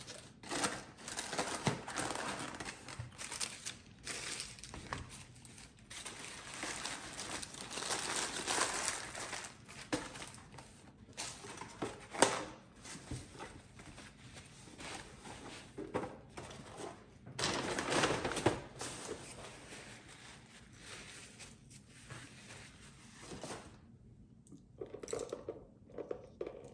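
Paper food liners crinkling and rustling as leftover chicken wings are packed into black plastic clamshell takeout containers, with a few sharp clicks and knocks as the lids close and the boxes are stacked. Near the end, a short slurp through a drinking straw.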